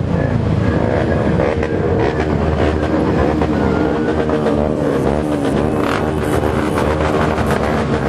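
Many motorcycle engines running at once, several revving so that their pitch wavers up and down over a constant rumble of traffic.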